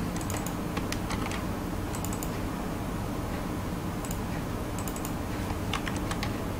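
Computer keyboard keys and mouse buttons clicking in short, irregular clusters of a few clicks each, over a steady low hum.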